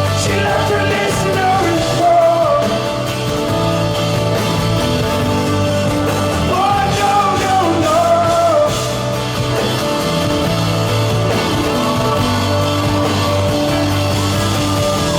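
Live band playing a song at full level, with a steady bass line under it and a singing voice rising over it in two phrases.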